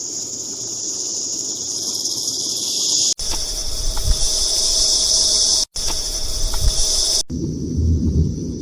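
A steady high-pitched hiss, insect-like in character, broken by abrupt cuts about three, five and a half and seven seconds in, after which it changes in tone and a lower rumble comes up.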